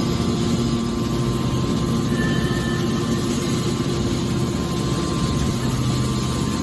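Hydraulic can baler running, a steady machine drone from its pump and motor with a few constant hum tones.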